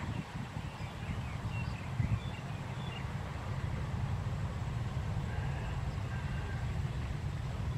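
Wind rumbling on the microphone in an open field, with a brief bump about two seconds in and faint, scattered high chirps above it.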